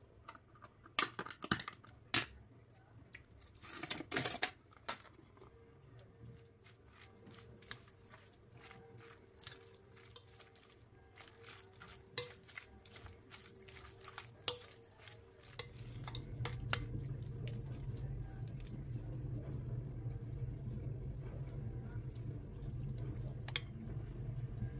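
Metal utensils clinking and scraping against pots and bowls, a dozen or so sharp knocks spread out with quiet between them. About two-thirds of the way through, a steady low hum starts and runs on.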